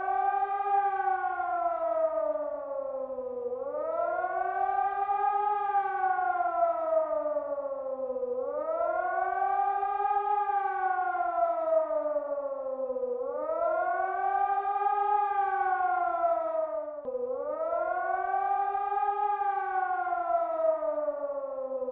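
Civil-defence siren sounding a wailing tone that rises quickly and falls more slowly, repeating about every five seconds. This rising-and-falling howl is Germany's signal for warning the population.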